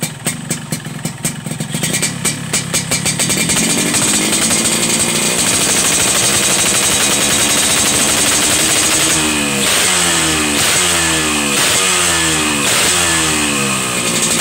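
Two-stroke Yamaha RX-series motorcycle engine through a NoPHP 'kolong kobra' racing exhaust. It starts at a pulsing, popping idle, revs up over the first few seconds and holds high. In the second half the throttle is blipped repeatedly, about five quick rises and falls in revs.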